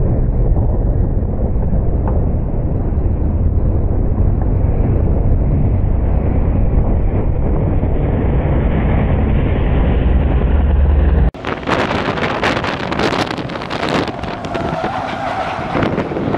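Small pickup race trucks' engines running on the track, heard under heavy wind buffeting on the microphone. About eleven seconds in the sound changes abruptly to a brighter, gustier wind noise with the engines still running under it.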